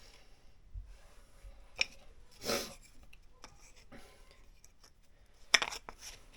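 Scattered workbench handling noises: a sharp click, a short scraping rub, then a sharper knock followed by a few light clicks, as tools and the work are picked up and set down.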